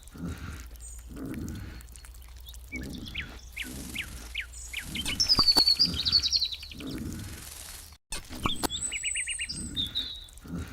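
Small birds chirping and trilling, loudest about five seconds in with a high call and a rapid trill. Low, regularly spaced thuds run underneath.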